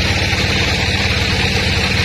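Sawmill engine running steadily, with a fast, even low throb under a higher steady hiss.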